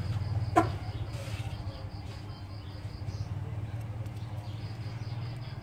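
Workbench room tone: a steady low electrical hum with a fast high-pitched pulsing, about five a second. There is one sharp click about half a second in as the phone motherboard is handled.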